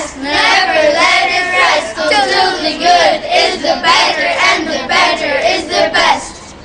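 A group of children singing a song together, the singing stopping near the end.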